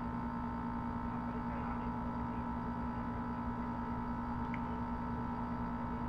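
Steady electrical hum made of several unchanging tones, with nothing else standing out.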